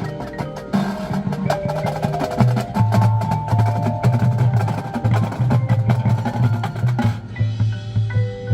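Marching band playing, with drums and mallet percussion over a low repeating bass line. About seven seconds in the drum hits drop away, leaving softer held notes.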